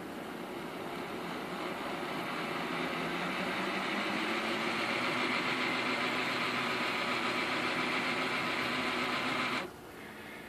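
Large-scale model diesel locomotive's electric motor and gear drive running in reverse under radio control. It speeds up over the first few seconds, runs steadily, then cuts off suddenly near the end.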